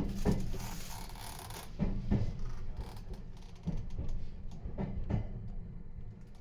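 Meitetsu 3500 series electric train running with a steady low rumble, its wheels knocking over rail joints in quick pairs several times.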